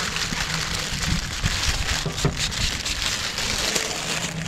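Thin plastic liner crackling as it is peeled off a sheet of wet window tint film, with a hand spray bottle spritzing soapy water onto the film. The sound is an even, rain-like crackle and hiss with scattered small ticks.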